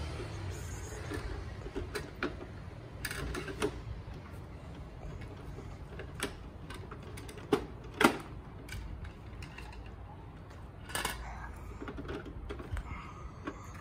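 Plastic rear bin-lifter mechanism of a Bruder MAN TGS toy garbage truck being worked by hand: irregular clicks and knocks, the loudest a pair of sharp clicks about eight seconds in.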